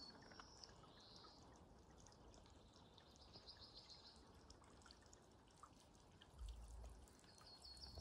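Quiet garden ambience with a small songbird singing a short, fast trill of high repeated notes three times, a few seconds apart. There is a brief low rumble about six and a half seconds in.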